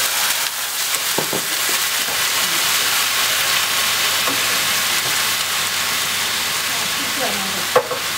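Minced garlic and ginger sizzling steadily and loudly in a hot nonstick frying pan as water hits the hot oil, with a wooden spatula stirring through it. A single sharp knock comes near the end.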